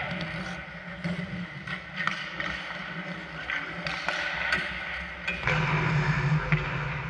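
Sharp, scattered clacks of hockey sticks and puck on the ice during play, with a steady low rumble setting in about five and a half seconds in.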